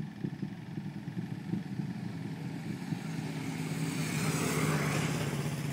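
A road vehicle passing close by: its engine tone and tyre hiss swell from about three seconds in, peak near the end, then start to fade. Underneath is a steady low rumble.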